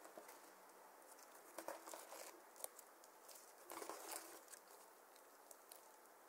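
Faint sticky crackles and small pops of slime being squeezed and stretched by hand, bunched into two short flurries about a second and a half and four seconds in.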